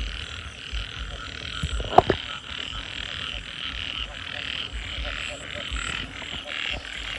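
A dense, steady chorus of many frogs calling together from wet ground at night, with a sharp, louder sound about two seconds in.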